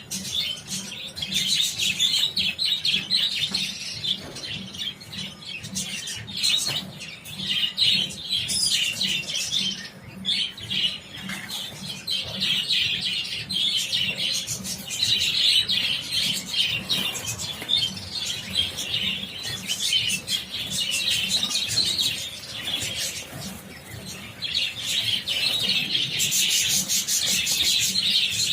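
A large flock of budgerigars chattering and chirping continuously, many birds calling over one another at once.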